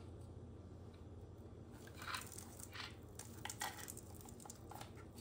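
Faint clicks and small scrapes of needle-nose pliers and a small hard-plastic part being worked into an RC truck chassis, with a few sharper clicks between about two and five seconds in.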